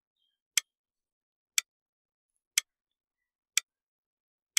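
Clock-tick sound effect: a sharp tick once a second, five ticks in all, with silence between them, timing the pause left to answer a quiz question.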